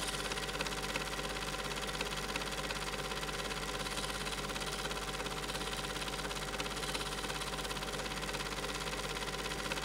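A small motor running steadily, with a constant whirring tone that does not change.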